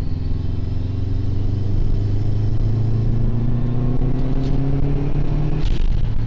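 Subaru WRX turbocharged 2.0-litre flat-four accelerating under load, its pitch rising steadily, with a brief hiss near the end. It pulls smoothly with no hiccups, the misfire cured by a new ignition coil pack.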